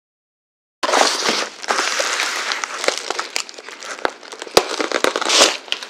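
Black plastic bubble mailer being cut open with a box cutter and handled, its plastic crinkling and crackling with many sharp clicks, starting about a second in.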